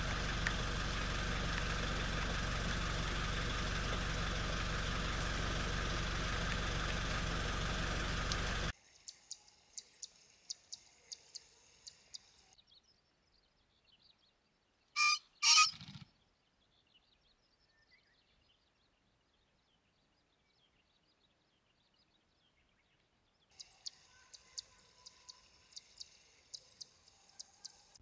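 Male green pheasant crowing about fifteen seconds in: two loud, sharp notes in quick succession, followed by a brief low whirr of wing-beats. Before it, for about nine seconds, there is a steady noise. Faint scattered ticks come before and after the call.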